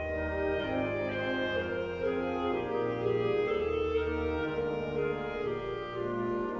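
Instrumental background music: slow, long held notes over a low bass line.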